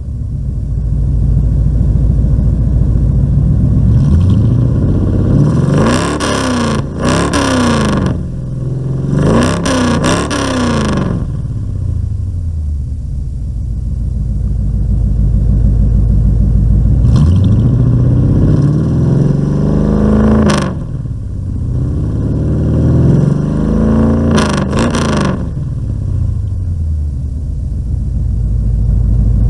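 Truck engine idling through split dual exhaust tips, revved several times: two pairs of quick blips, then a slower climb to a peak about two thirds through and one more blip.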